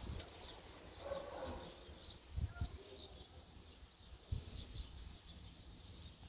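Faint birds chirping repeatedly in the background, over soft low thumps and rustling as hands handle and stake a tomato plant.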